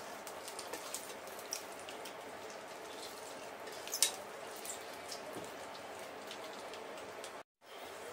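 Sausages sizzling and crackling in a nonstick frying pan, with a sharp click of chopsticks against the pan about four seconds in. The sound drops out for a moment near the end.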